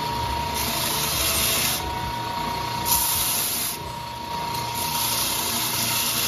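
Benchtop oscillating belt sander running steadily while a banksia pod block inlaid with crushed turquoise is pressed to the belt and pulled away, the sanding hiss rising and falling about three times over the motor's steady running.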